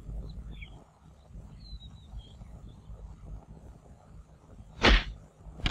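A wooden front door being unlatched and opened: one loud sharp clack about five seconds in, after a quiet stretch with a few faint high chirps.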